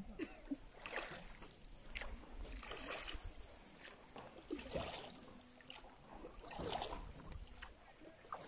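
Oars of a small rowed boat dipping and pulling through the water, with faint, repeated sloshing and splashing about every second.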